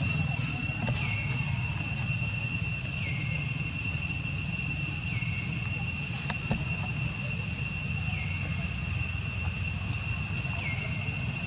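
Steady high-pitched insect chorus, with a short falling call repeating about every two seconds over a low steady rumble.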